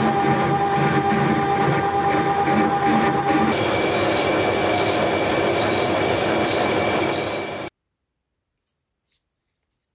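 Metal lathe cutting metal: a twist drill feeding into the spinning workpiece with a steady tone. About three and a half seconds in it changes to a boring bar cutting inside the bore, with a higher steady tone. The sound cuts off suddenly about two seconds before the end.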